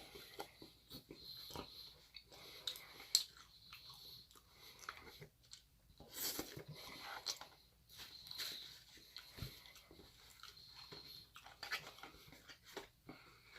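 Close-up eating sounds of a fast-food meal: chewing and biting, with scattered soft crunches and mouth clicks.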